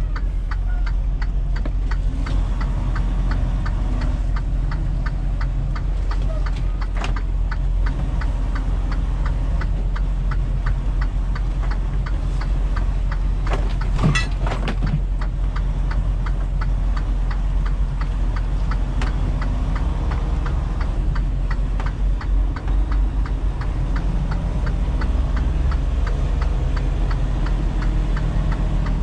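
Semi-truck's diesel engine idling steadily, with an even ticking a few times a second over it. A brief chirp sounds about halfway through.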